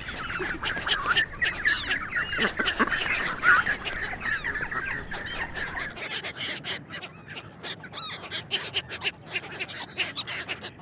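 A flock of ducks quacking, many calls overlapping. About halfway through, the background hiss cuts out and the quacks come shorter and more separate.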